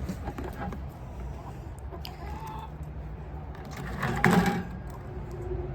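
Backyard chickens clucking, with one louder call about four seconds in.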